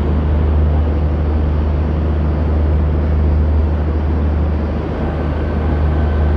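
Steady low engine hum of a passenger train standing at a railway platform, with a continuous rush of station noise around it. A faint thin whine joins in near the end.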